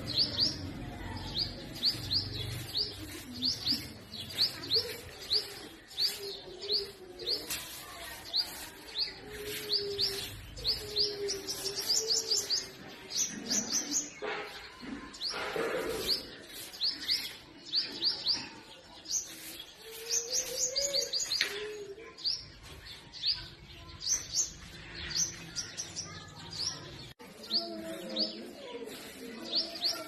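Sunbird calling: runs of short, high chirps repeated again and again, with a lower wavering bird call also heard a few times.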